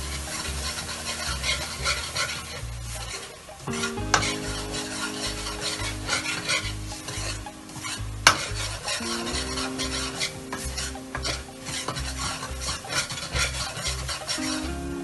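Metal ladle stirring and scraping a thick besan-and-ghee mixture in a metal kadhai, the mixture sizzling steadily as it cooks with a little water in it. The ladle clinks sharply against the pan twice, about 4 and 8 seconds in.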